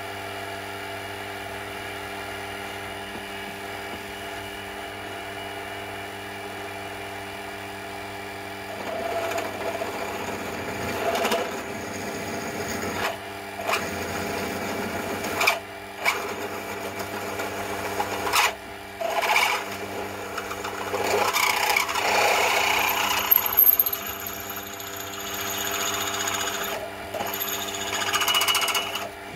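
Mini mill spindle motor running steadily with a twist drill turning, then the drill cutting into a copper tube, a series of uneven cutting spells broken by short pauses as the bit is fed in and eased back. A brief high squeal sounds during the cut, about two-thirds of the way through.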